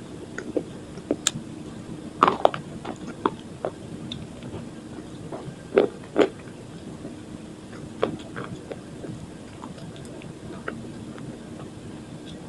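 Crunchy biting and chewing of slate pencil coated in dried multani mitti (Fuller's earth) paste: irregular sharp crunches, the loudest two pairs about two seconds in and about six seconds in.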